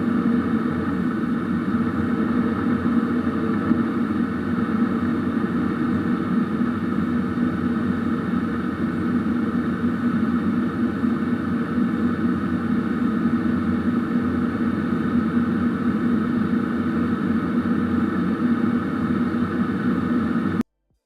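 Steady drone of a Boeing 737-800's CFM56 engines and airflow heard inside the cabin, a constant hum with several fixed tones and no change in pitch. It cuts off abruptly near the end.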